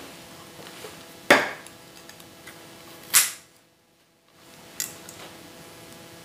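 Scissors snipping through dahlia stems: three sharp cuts, the first about a second in and loudest, the second a little after three seconds, the third weaker near five seconds. The sound drops out briefly after the second cut.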